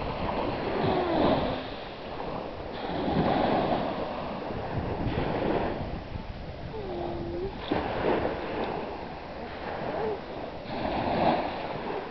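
Wind blowing over the microphone and small waves washing on the beach, the rush swelling and fading every few seconds.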